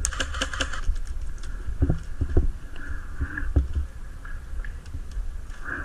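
Close handling noise from a moving player's kit: rustling and footsteps with a low rumble, and a quick run of sharp clicks in the first second, then scattered single clicks.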